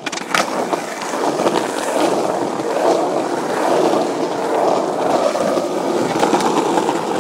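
Skateboard wheels rolling steadily over rough asphalt, with a couple of sharp clicks near the start.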